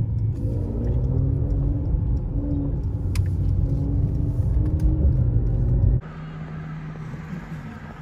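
Steady low road and engine rumble inside the cabin of a moving Mercedes car. About six seconds in it cuts off abruptly to a much quieter outdoor background.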